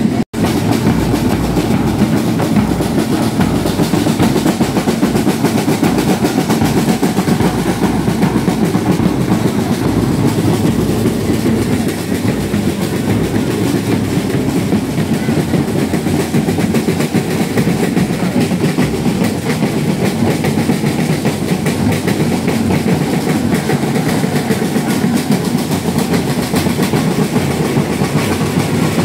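A group of street drums played together in a continuous, fast, rolling beat, with dense even strokes that keep going without a break.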